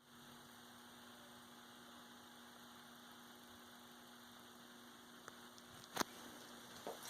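Faint steady electrical hum over a light hiss, with a sharp click about six seconds in and a couple of light knocks after it.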